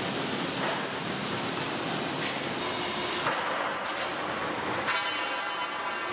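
Steady industrial machinery noise, with a few sharp metallic clanks standing out from it.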